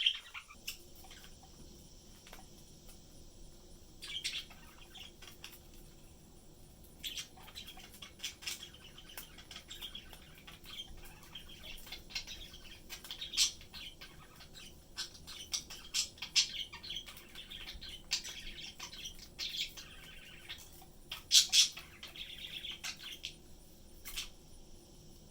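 Pet budgerigars chirping and twittering in scattered short calls, with a few louder calls standing out among softer chatter.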